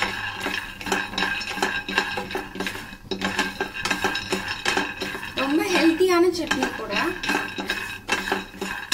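Peanuts rattling and scraping in a nonstick frying pan as a spatula stirs them during dry-roasting, a busy run of quick clicks and scrapes.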